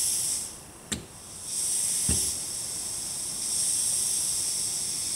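Compressed air hissing at a pneumatic pressure regulator as its control is turned up to raise the pressure. The hiss drops away about half a second in, comes back about a second later and then holds steady, with two short knocks about one and two seconds in.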